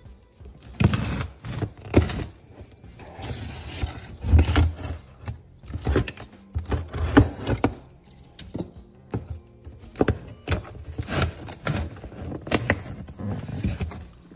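Cardboard shipping box being slit open with a utility knife and its taped flaps torn and pulled open: an irregular run of scraping, tearing and knocking.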